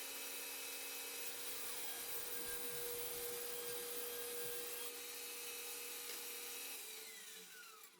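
Power saw running as it cuts plywood into strips with a steady whine. About seven seconds in it is switched off, and its pitch falls as the blade winds down.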